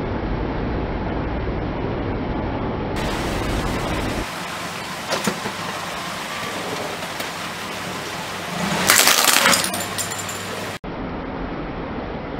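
Car engine running at idle, a low steady rumble. About three seconds in the sound changes to a thin hiss with a few clicks and a loud, brief crackling rattle; the rumble returns near the end.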